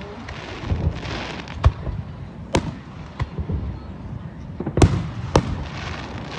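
Aerial fireworks shells bursting in a display: several sharp bangs at irregular spacing, the loudest about five seconds in. Between the bangs runs a hissing crackle.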